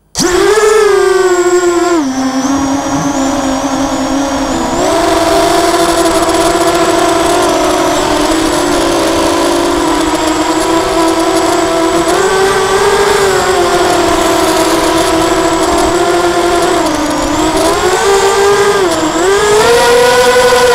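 Lumenier QAV250 quadcopter's four brushless motors and propellers whining in flight, heard close from the onboard camera. The pitch rises and falls with the throttle: it drops about two seconds in, climbs again around five seconds, dips twice near the end, then rises.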